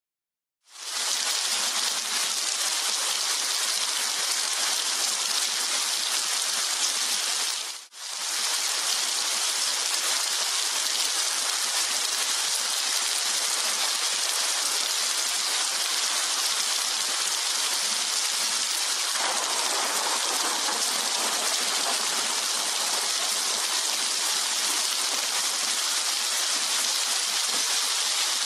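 Heavy rain falling steadily, a dense hiss that starts within the first second. It cuts out briefly about eight seconds in and comes straight back.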